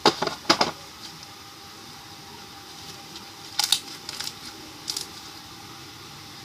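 Plastic slime box being handled: a quick cluster of sharp clicks and taps at the start, then a few more clicks about three and a half to five seconds in.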